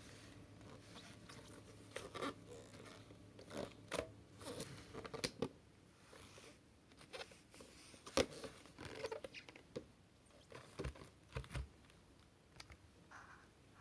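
Hard plastic parts of a cordless stick vacuum being handled and taken apart: irregular clicks, knocks and light rattles, some sharper than others, with no motor running.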